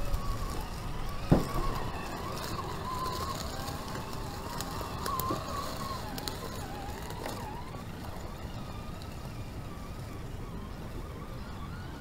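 Vanquish VS-410 Phoenix RC rock crawler's electric motor and geartrain whining, the pitch wavering up and down with the throttle as it crawls over rocks. One sharp knock comes about a second in.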